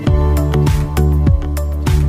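Background music with a steady beat, about three drum hits a second over a low bass, starting loudly right at the beginning.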